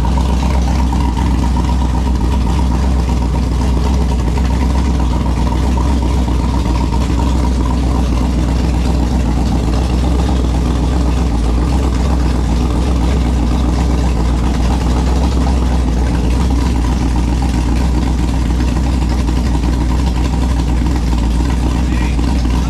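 Texas Speed 416ci LS3 V8 idling steadily, with a deep, even low hum and no revving.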